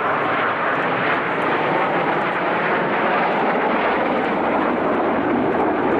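Jet noise from a formation of Aermacchi MB-339 PAN trainers, each with a single Rolls-Royce Viper turbojet, flying overhead: a steady rushing noise that holds level throughout.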